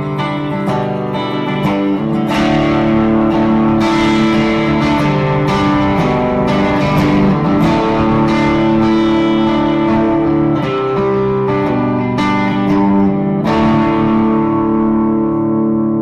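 Electric guitar, a Gibson ES-335 on its bridge pickup, played through a Bad Cat Bobcat 5R combo amp: picked notes and strummed chords that ring out, with a big strummed chord near the end.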